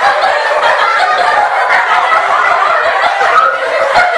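A roomful of children laughing, loud and continuous.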